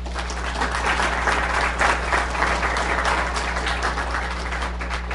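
Audience applauding, building up quickly and tapering off near the end.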